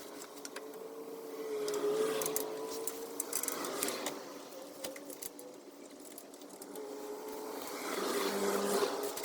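Small electric motor of a power tool running with a wavering whine, loudest in two spells, about two seconds in and again near the end, with light clicks between.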